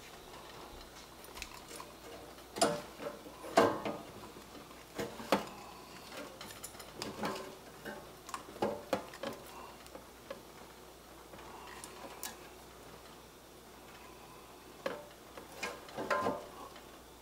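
Irregular clicks and knocks of a metal fork against a wire roasting rack and speckled enamel roasting pan as a whole roast chicken is lifted and turned over, with the loudest knocks about three and a half seconds in and near the end.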